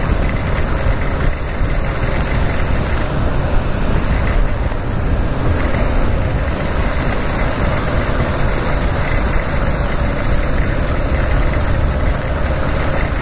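Yamaha XTZ 250 motorcycle at a steady cruise on a rain-soaked road: a constant rush of wind and tyre spray over its single-cylinder engine running evenly.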